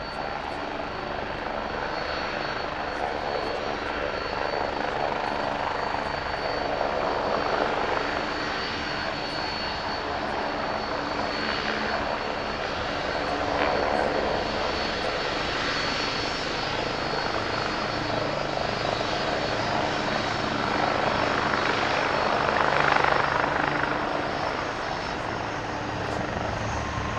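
Airbus A330-200 jet engines running at taxi thrust as the airliner taxis close by: a steady turbine whine over a rushing engine noise that swells and eases, loudest a little before the end.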